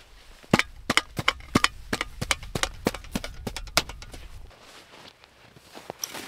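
A rapid run of sharp, hard knocks, about a dozen over three seconds at roughly three to four a second, that then stop.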